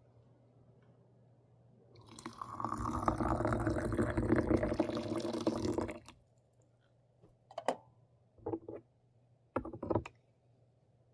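Water poured into a cup or teapot for pu-erh tea, a steady stream for about four seconds that stops abruptly. Then a few short, light taps.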